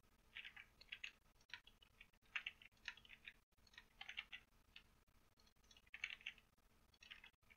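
Faint, irregular clicks of a computer keyboard and mouse being operated, coming in small clusters.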